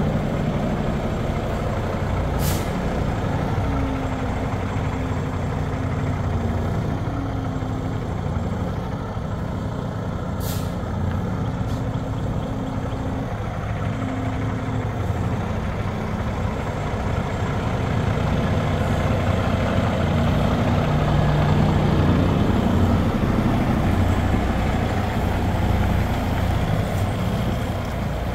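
Kenworth T680 semi-truck's diesel engine running as the tractor-trailer pulls away at low speed, growing louder past the middle. Two brief air hisses come a couple of seconds in and again about ten seconds in.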